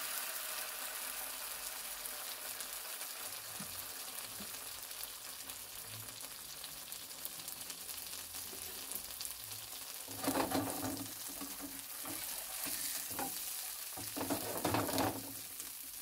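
A tortilla dipped in red chile adobo sizzling as it fries in a thin layer of oil in a nonstick pan: a steady hiss, with two louder surges of sizzle in the second half.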